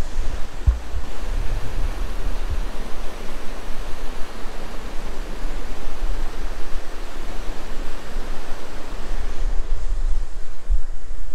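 Steady rushing of a mountain creek's white water in the canyon below. Wind buffets the microphone with low gusts in the first few seconds and again near the end.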